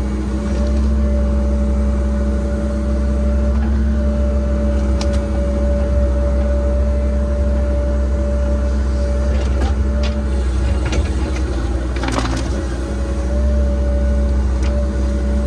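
Cat 306 excavator's diesel engine running steadily under work, with a few clicks and knocks and a louder scraping knock about twelve seconds in, where the engine note dips briefly.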